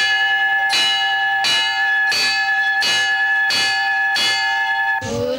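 Hand-held metal school bell struck seven times at an even pace, about one stroke every 0.7 seconds, each stroke ringing on into the next; the ringing stops about five seconds in.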